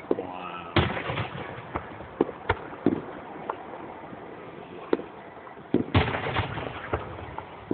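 Fireworks exploding during a finale: a run of sharp bangs, several followed by crackle, coming in clusters, the heaviest about six seconds in.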